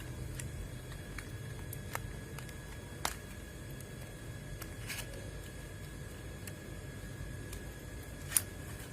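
A few scattered sharp clicks of metal hand tools being handled while spark plugs are fitted, the loudest near the end, over a steady low hum.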